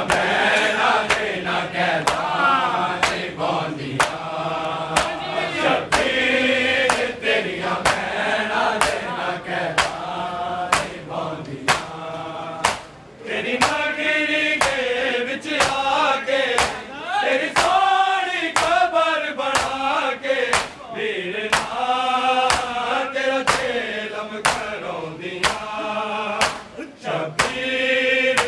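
A male voice chants a noha, a mournful lament, over a steady rhythm of sharp slaps from mourners beating their bare chests in matam, a little more than one slap a second.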